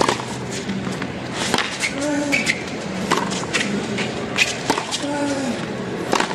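Tennis rally on a hard court: sharp racket-on-ball hits every second or so, with short rubber-sole squeaks from players moving on the court.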